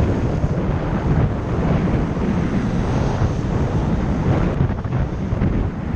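Wind buffeting the microphone of a camera on a moving bicycle: a low, steady rumble.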